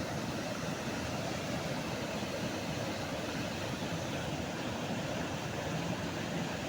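Floodwater of the Ziz river rushing steadily, a continuous even rush of water noise.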